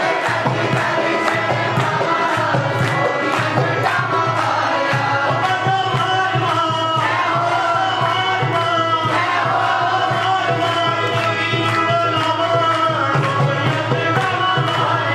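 Devotional kirtan music: harmonium and a hand drum keeping a steady, fast beat, with a man singing into a microphone and a crowd clapping along.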